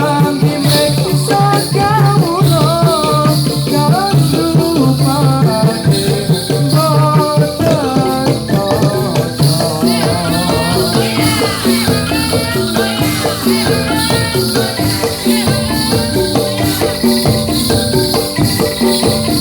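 Topeng Ireng dance music playing loudly: dense drumming with a constant jingling rattle of bells, and a wavering melodic line over it.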